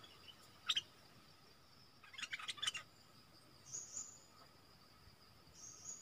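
Bulbul calls: a short, sharp call about half a second in, then a quick burst of chattering notes around two to three seconds in, followed by two brief high, hissy notes. A steady insect drone runs underneath.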